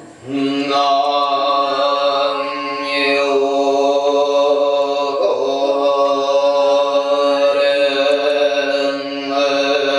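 Voices chanting in long, held tones, with short breaks for a new breath about five seconds in and again near the end.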